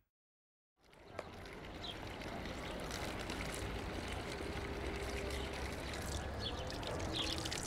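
Water running steadily from the spout of a public drinking fountain into its stone basin, starting about a second in after a moment of silence, with a few short high chirps over it.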